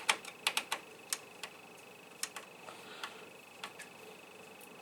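Small clicks and taps of computer hardware being handled and fitted into a PC case: a quick run of clicks in the first second, then scattered single ticks, over a faint steady high whine.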